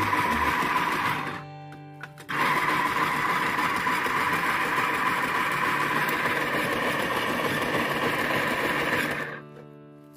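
Electric food processor motor running steadily as its slicing disc cuts a peeled taro root into thin chips. It stops briefly about a second in, starts again, and shuts off near the end. Quiet background music plays under it.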